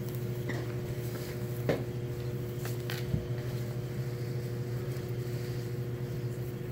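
A steady low mechanical hum carrying a couple of faint, even tones, with a few faint clicks.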